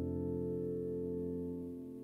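Soft instrumental background music: a held chord ringing and slowly fading away.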